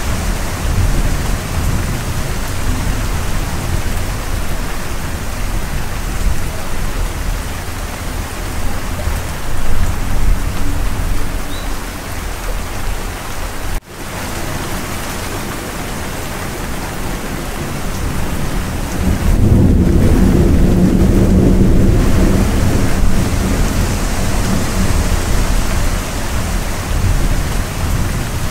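Steady heavy rain with thunder; a low rumble of thunder swells about two-thirds of the way through. The sound cuts out for an instant near the middle.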